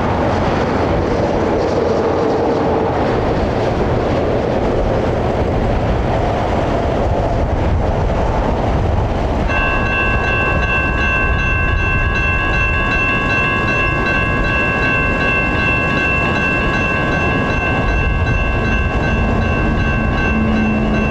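Railroad crossing warning bell starts ringing abruptly about halfway through, a steady high electronic ring, over a constant rumble of road traffic and the approaching freight train. A faint low note of the train's horn comes in near the end.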